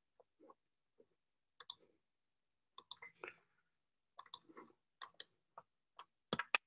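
Faint computer mouse clicks: a dozen or so short sharp clicks at irregular intervals, several in quick pairs, the loudest cluster near the end.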